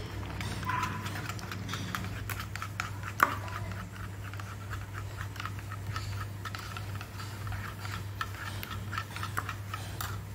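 Metal spoon beating raw eggs in a plastic bowl: a fast, even clicking of the spoon against the bowl, with one sharper knock about three seconds in, over a low steady hum.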